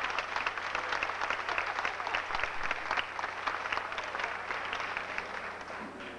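Audience applause, many hands clapping steadily and dying away near the end.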